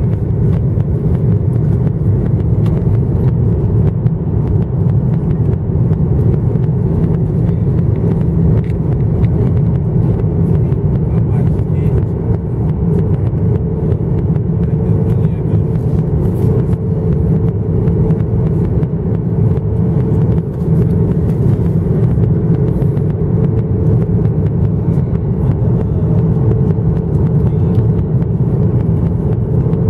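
Steady cabin noise of a Boeing 737-900ER in descent, heard from a window seat over the wing: a deep, even rumble of its CFM56 turbofan engines and the airflow over the fuselage.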